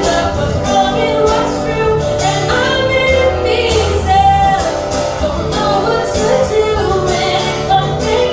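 An original pop song performed live: a solo voice sings long notes that bend and glide over instrumental accompaniment with sustained low bass notes.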